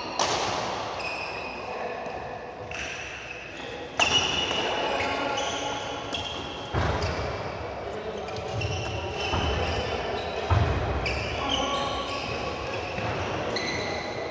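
Badminton doubles rally: sharp racket hits on the shuttlecock a few seconds apart, court shoes squeaking on the floor, and the thuds of footwork and landings.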